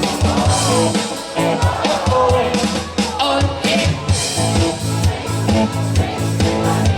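A band playing live, with a steady drum beat under pitched instruments.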